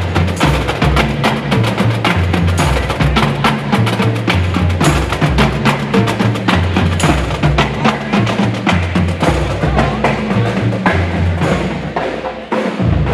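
Marching pep band playing: a drumline of snares and tenor drums beats a fast, dense rhythm over a deep bass line. The level dips briefly near the end, then the playing carries on.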